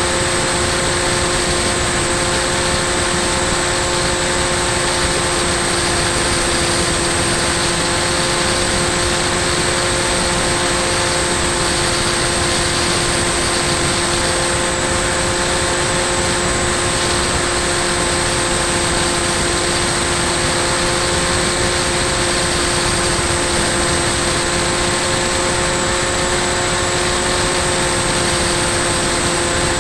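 Bixler 2 RC plane's electric pusher motor and propeller running at a steady, unchanging pitch, heard from the onboard camera, with a steady rush of wind noise.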